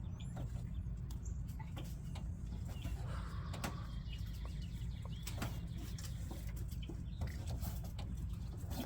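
Scattered light clicks and taps of hands working at the old plastic wiring plug on an alternator, with birds calling in the background.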